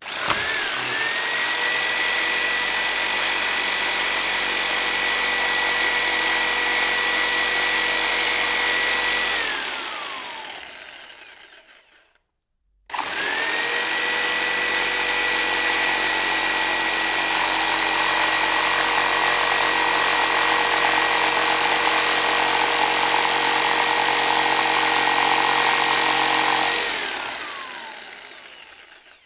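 Electric jigsaw running twice: each time the motor spins up quickly to a steady high whine, runs for about ten seconds or more, then winds down with a falling pitch once it is switched off. The two runs are separated by a brief gap of silence.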